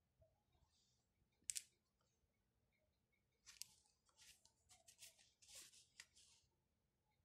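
Faint crisp rustles and scratches of a sheet of drawing paper being handled and turned on a cloth-covered table: one short crackle about a second and a half in, then a run of quick rustles near the end.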